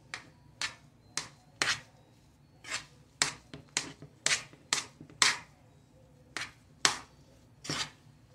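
A metal fork clinking against the inside of a metal cooking pot while mashed potatoes and butter are stirred together: a string of sharp, uneven clicks, about two a second.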